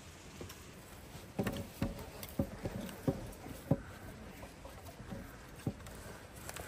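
Hands mixing and kneading bread dough in a glass bowl: a run of irregular soft pats, squelches and knocks, starting about a second and a half in and thinning out near the end.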